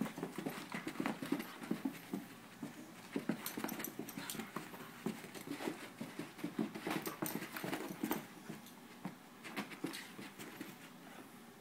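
Seven-month-old puppy spinning after its tail: quick, irregular scuffing and patter of paws on carpet with the dog's breathing, quietening near the end.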